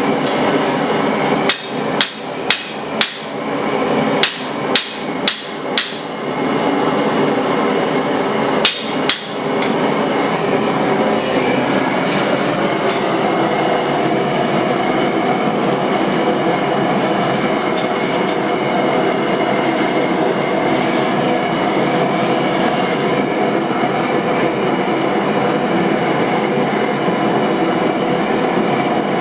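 Hammer blows on hot steel at an anvil, about ten strikes in irregular groups during the first ten seconds, over a steady roar. The roar then continues alone.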